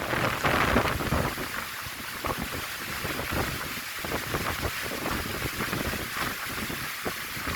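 Heavy rain with strong, gusting wind buffeting the microphone in a storm: a continuous rushing hiss with uneven low rumbles, loudest in the first second.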